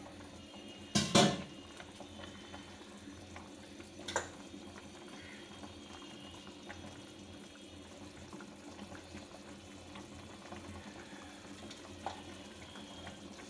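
Fish curry gravy bubbling at a simmer in a pan, with a spatula working in it. About a second in there is one loud sharp clank, the loudest sound, and lighter knocks follow around four seconds in and near the end.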